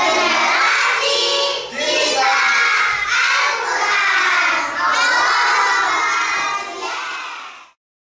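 A class of children shouting a chant together in unison, in about three long phrases, cutting off suddenly near the end.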